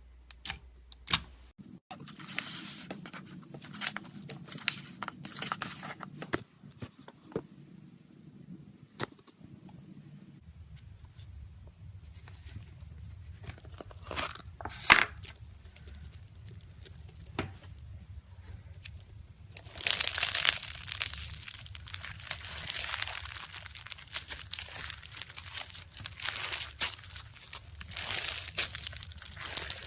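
Slime being worked by hand, giving sharp clicks and pops at first, then dense crackling from about twenty seconds in.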